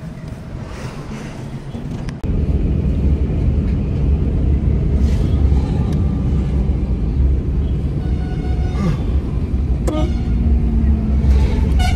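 Road and wind noise inside a moving car: a steady low rumble that grows louder about two seconds in. A vehicle horn sounds briefly near the end.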